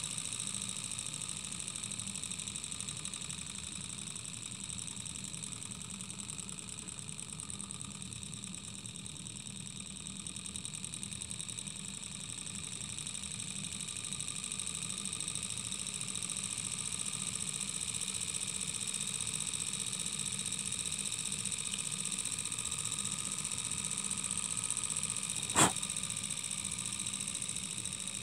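Small alcohol-fired brass model Stirling engine running smoothly, its piston and flywheel linkage making a fast, steady mechanical clatter. A single sharp click sounds near the end.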